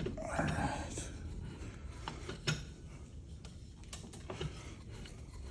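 Metal parts of a ceiling fan being worked apart by hand: a brief scraping about a second long at the start, then a few scattered light clinks.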